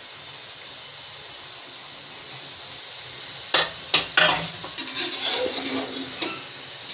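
Chana korma with fresh herbs sizzling in a pressure cooker pot as it is fried. About halfway through, a metal spoon starts stirring, with sharp clinks against the pot's sides and scraping through the mixture.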